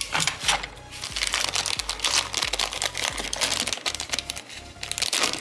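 Clear plastic packaging bag crinkling and rustling as hands open it, with background electronic music keeping a steady bass beat.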